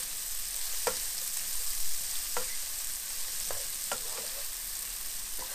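Sliced onions sizzling in oil and butter in a frying pan, a steady high hiss, while a wooden spoon stirs them, scraping the pan about five times.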